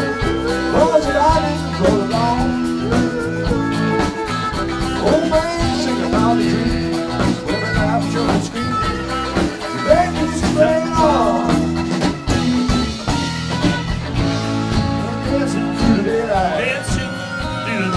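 Live band playing: electric guitars over keyboard, bass and drums.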